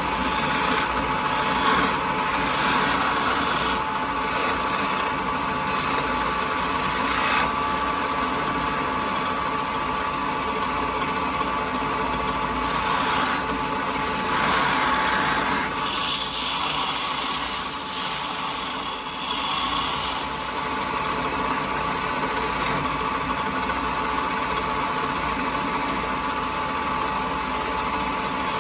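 Wood lathe running with a steady motor hum while a hand-held turning chisel cuts into a spinning pine spindle. The cutting noise comes and goes in short passes as the tool shapes beads and a cove.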